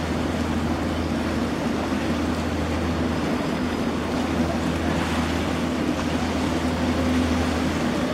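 Ferry engines running steadily, a low even hum with a constant wash of noise and no change in pitch.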